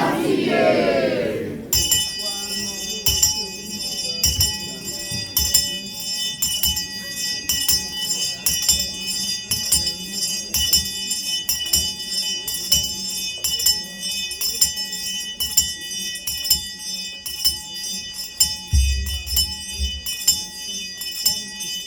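Church percussion music: continuous rhythmic metallic jingling, like a tambourine or shaken bells, over irregular low drum beats, with congregation voices in the first couple of seconds.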